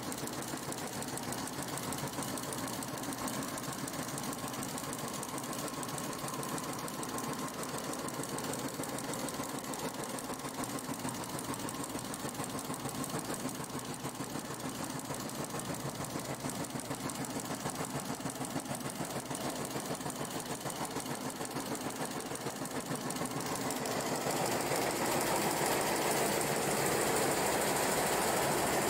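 Multi-needle commercial embroidery machine with a sequin attachment stitching at speed: a fast, even clatter of needle strokes. It grows louder near the end.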